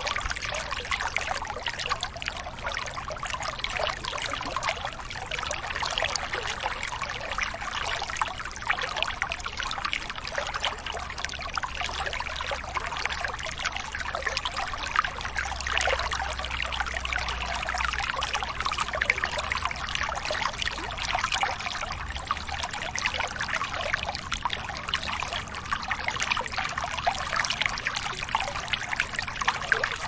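Running water trickling and splashing steadily, like a small stream.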